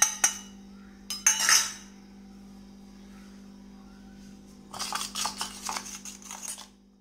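Steel spoon clinking against a stainless steel bowl, then scraping as it stirs hibiscus flower powder into a thick dark paste, in a run of quick strokes for about two seconds near the end. A steady low hum sits underneath.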